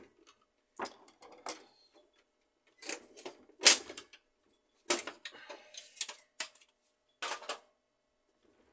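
Plastic housing panels of an HP LaserJet 1300 laser printer being unclipped and pulled off: a run of about eight sharp plastic snaps and clatters, loudest about three and a half seconds in.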